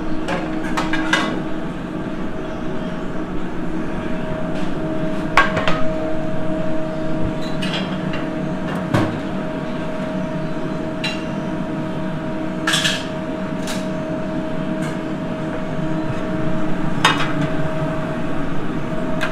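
Busy kitchen sounds: a steady hum of kitchen equipment with scattered clinks and knocks of metal pans and utensils, the loudest two about two-thirds of the way through.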